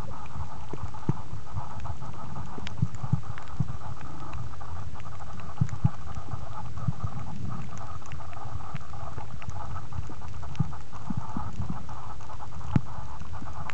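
Underwater sound picked up by a compact camera sealed in a soft waterproof bag: a steady muffled rumble and hum with scattered soft knocks and sharp clicks at irregular intervals, one click near the end standing out.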